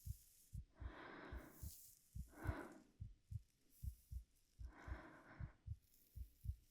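A heartbeat thumping steadily in lub-dub pairs, with a few slow, soft breaths over it.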